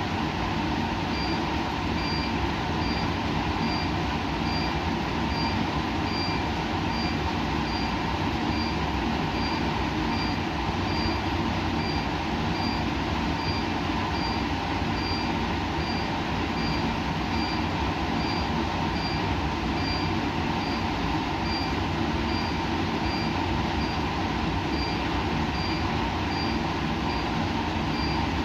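Steady laboratory machine noise: a constant hum and rushing, like ventilation and running equipment, with a faint high electronic beep repeating evenly about every 0.7 seconds.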